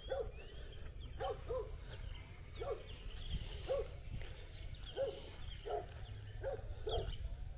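A dog barking repeatedly, about nine single barks at uneven intervals of roughly half a second to a second.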